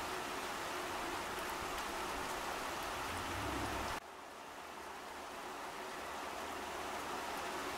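Steady rain falling into a puddle and onto leaves: an even hiss with faint individual drop ticks. About halfway through the sound suddenly drops quieter, then gradually swells back.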